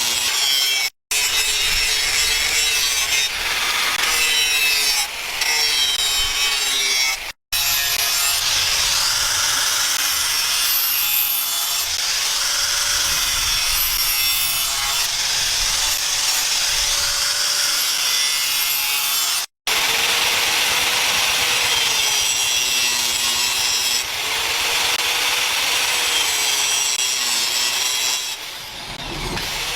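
Continuous rasping workshop noise of a tool sawing or grinding into a workpiece, with a faint hum that wavers up and down in pitch. It is broken by three very short silent gaps.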